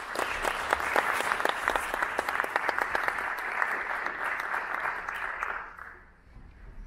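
Concert audience applauding, many hands clapping at once; the applause dies away about five and a half seconds in.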